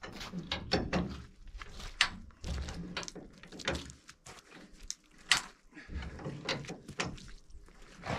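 High-lift jack being worked to lift a heavy stuck pickup: an irregular run of sharp metallic clacks and knocks, several a second, with low thuds under some of them.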